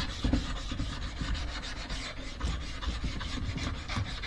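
A Nagura stone rubbed back and forth over a wet 4000-grit Japanese waterstone, a gritty scrubbing in quick repeated strokes, cleaning and refreshing the stone's surface during sharpening.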